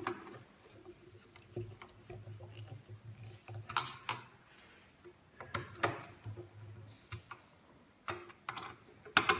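Irregular sharp metallic clicks and taps as screws are tightened one by one into the sheet-metal stove body, a few louder clinks among them.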